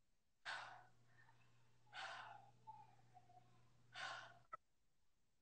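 A woman breathing hard from exertion during a strenuous glute exercise: three short, faint breathy exhales about two seconds apart, with a small click near the end.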